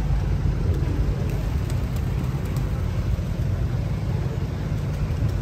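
Steady low rumble of a moving road vehicle, with no speech over it.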